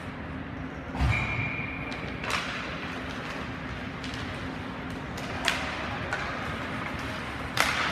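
Ice hockey arena during play: a low thud about a second in, then a short, steady, high whistle-like tone, and several sharp clacks of sticks and puck striking, the last near the end the loudest, over a steady low hum of the rink.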